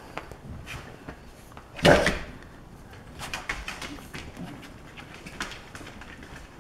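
Alapaha Blue Blood Bulldog puppies playing and tussling on blankets: scuffling, small scattered clicks and soft puppy noises, with one louder short, noisy burst about two seconds in.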